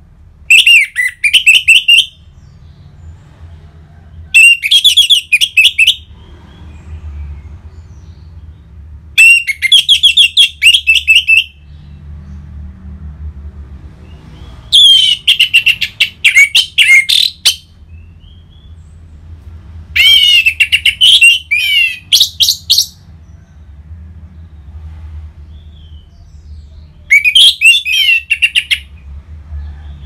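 Orange-headed thrush singing loud, open song: six phrases of about two to three seconds each, a few seconds apart, every phrase a fast string of sweeping whistled notes.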